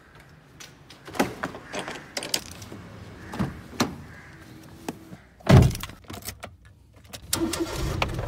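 Handling clicks and knocks as a person gets into a car, with a car door shutting in one heavy thump about five and a half seconds in. A low steady hum starts near the end.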